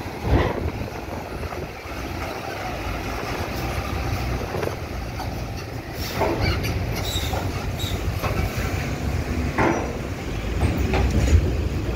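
Heavy truck's diesel engine running as it drives off the ferry across the steel landing ramp, with several metallic clanks as its wheels roll over the ramp's plates.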